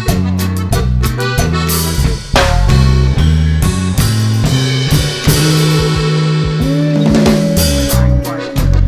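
Upbeat instrumental background music with a drum kit and a stepping bass line.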